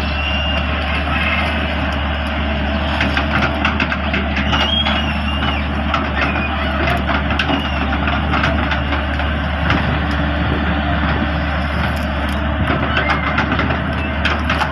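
Volvo EW180 wheeled excavator's diesel engine running steadily under load as the hydraulic arm digs its bucket into a brushy ditch. Scattered sharp cracks and snaps of brush and branches sound over the engine.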